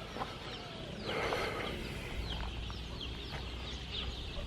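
Free-roaming chickens clucking, with many short, high bird chirps scattered through.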